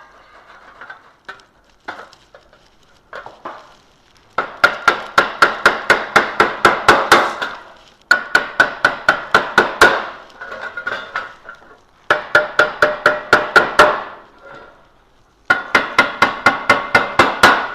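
Small hammer tapping the tabs of a galvanised steel chicken feeder over to lock an end panel in place: four quick runs of light metallic strikes, about five a second, each strike with a short ringing note. Quieter knocks of the parts being handled come before and between the runs.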